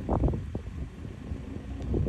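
Exhaust of a street-racing-spec Toyota Soarer with an aftermarket muffler, heard as the car drives off: a low, uneven rumble with a sharp burst just after the start. It eases off around the middle and swells again near the end.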